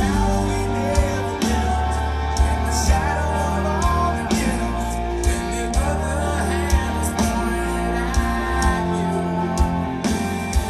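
Live rock band playing a song with a singer, recorded from the audience: guitars, bass, drums and vocals.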